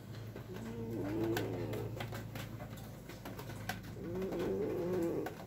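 An old Scottish Fold cat snoring in its sleep: two drawn-out, raspy snores about three and a half seconds apart.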